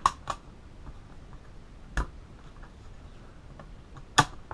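A few separate sharp plastic clicks and knocks from handling the underside of a Dell Latitude D620 laptop as its battery is unlatched and lifted out of its bay. The loudest click comes just after four seconds in.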